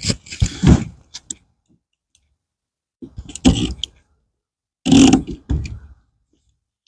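A blade cutting and scraping through tough vinyl-coated pet screen, in three short bursts with pauses between, as the excess screen is trimmed off the frame.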